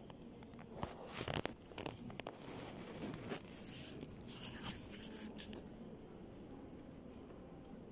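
Handling noise from a handheld phone: faint scattered rustles and clicks, densest about a second in and again from about three to five seconds in, over a quiet room hum.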